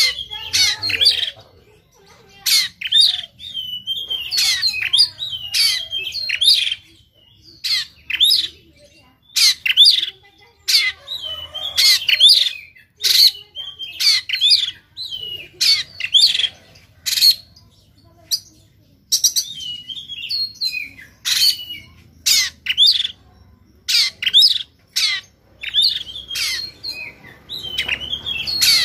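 Caged Oriental magpie-robin singing in harsh, rapid bursts of short sharp notes with brief pauses between phrases. This is the rough 'shooting' song of a male worked up to fight.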